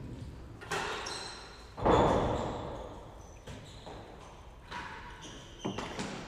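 Real tennis rally: sharp knocks of racket on ball and ball off the court's walls and floor, echoing in the enclosed court. The loudest knock comes about two seconds in, with two more close together near the end.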